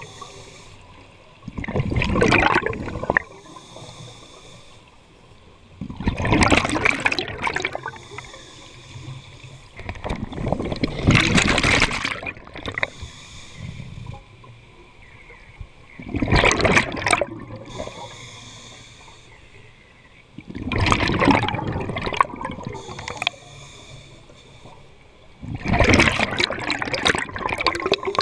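Scuba diver breathing through a regulator, recorded underwater: a rush of exhaled bubbles comes about every four to five seconds, six times, with a faint hiss between.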